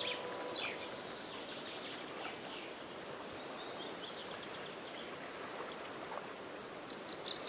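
Small birds chirping over a steady soft outdoor hiss, with a quick run of high chirps near the end. The last of the background music fades out right at the start.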